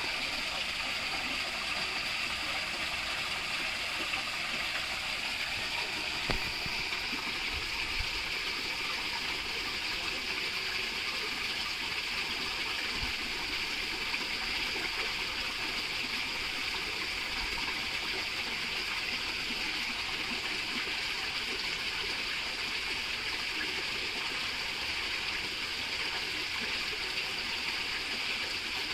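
Water pouring from a concrete culvert and splashing into a stream: a steady rushing and splashing.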